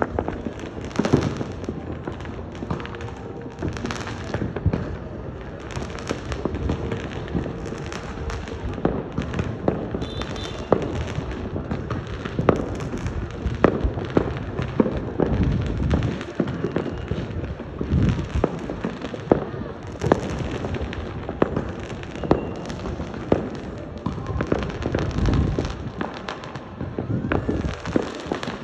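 Fireworks going off without a break: a dense, irregular run of booms and cracks, many overlapping, over a constant crackling rumble.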